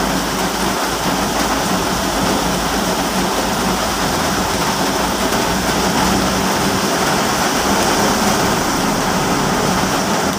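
Heavy rain falling steadily on a car's roof and windshield, heard from inside the cabin while the car drives along a wet road.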